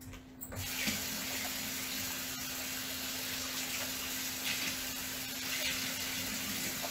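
Kitchen sink faucet turned on about half a second in and running steadily as a butterflied lobster tail is rinsed under it.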